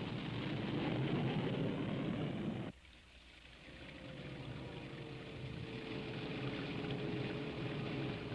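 Douglas DC-7 piston airliner engines running in a loud steady roar as the plane taxis. It cuts off abruptly about three seconds in, giving way to a quieter steady hiss of the Chrysler Turbine Car on a wet road in the rain, with a faint steady whine over it.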